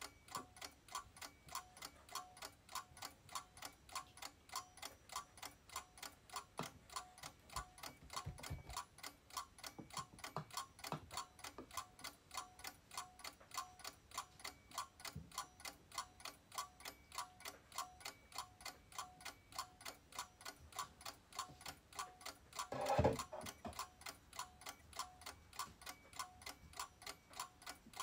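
A clock ticking steadily, about two ticks a second, with faint knocks of darkroom trays and tongs being handled. About 23 seconds in there is one brief, louder clatter.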